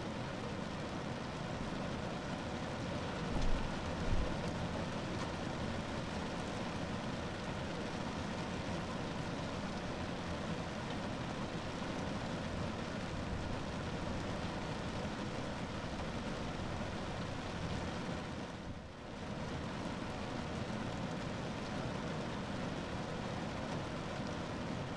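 Rain falling steadily on a car roof, an even wash of noise. Two short low thumps come about three and a half and four seconds in, and the level dips briefly about three-quarters of the way through.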